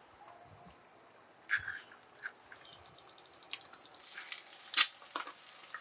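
Eggs being cracked on a skillet, a few sharp taps, then the eggs starting to sizzle and spit in the hot pan, the crackling growing about four seconds in.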